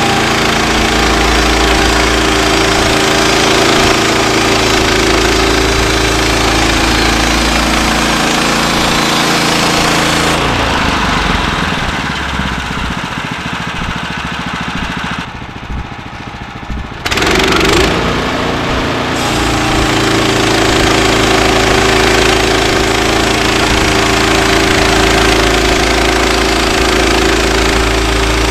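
Small gas engine of a Woodland Mills HM126 portable band sawmill running steadily at full speed while the blade cuts a log. About ten seconds in it drops to a lower, rougher sound for several seconds, then picks back up and runs steady again.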